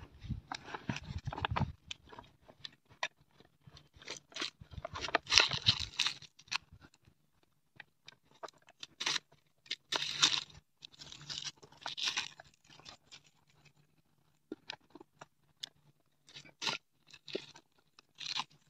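A red onion being peeled and cut with a knife on a wooden chopping board: irregular crisp crunches and crackles as the blade works through the onion, with short clicks.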